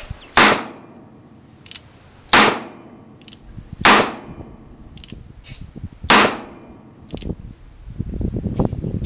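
Handgun fired four times at uneven intervals of about one and a half to two seconds. Each shot is a sharp crack with a short ringing tail, and fainter cracks fall in between.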